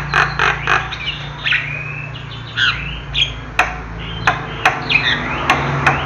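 Javan myna calling: a quick run of repeated harsh notes, then whistles and squawks that glide up and down in pitch. Sharp single clicks come in the second half, over a steady low hum.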